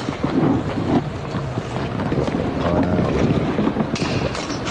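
Steady rumbling noise with no clear pitch, with a brief hiss about four seconds in.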